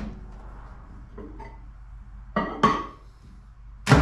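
A glass measuring cup being loaded into a microwave oven. There is a clunk at the start, two ringing clinks of glass a little past halfway, and a loud clunk of the door at the end.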